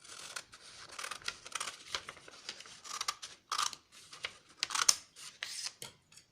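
Scissors cutting a sheet of paper into slips: an uneven run of snips, several a second.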